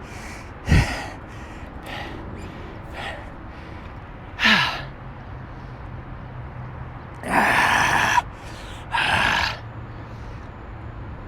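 A man's breaths, a few separate loud exhales or sighs, one of them briefly voiced with a falling pitch about four and a half seconds in. A faint low steady hum runs underneath.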